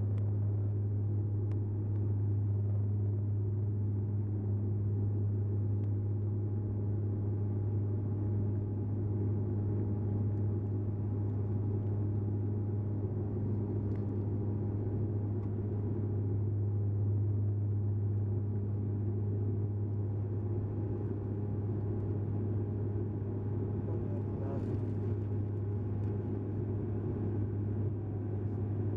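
Turboprop airliner heard from inside the cabin while climbing after take-off: its engines and propellers make a steady low drone with a strong hum that stays unchanged throughout.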